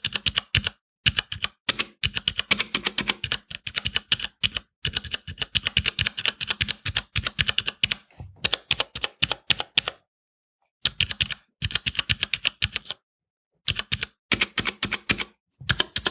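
Typing on a WASD VP3 61-key mechanical keyboard with Cherry MX Brown switches, its keycaps fitted with thin red O-ring dampeners (40A-L) that soften the bottom-out. The keystrokes come in quick runs of clicks with brief pauses, the longest about a second long around two-thirds of the way through.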